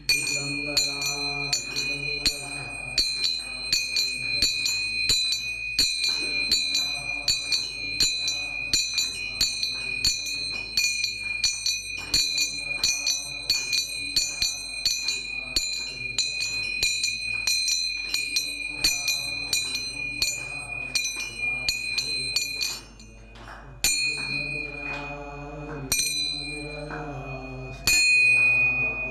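A man's voice singing a devotional chant, accompanied by small bell-like metal percussion struck in a quick steady rhythm, its high ringing held throughout. Everything drops away briefly about three-quarters of the way through, then resumes.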